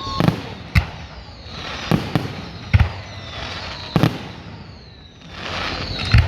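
Fireworks going off: about six sharp bangs at irregular intervals of roughly a second, with hissing and thin whistling tones that slide down in pitch between them.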